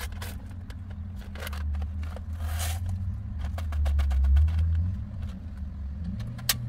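A steady low rumble, loudest about four seconds in, under light rustling and clicking as a food packet is opened and emptied into a pot. Near the end comes one sharp click as the knob of a portable gas camp stove is turned.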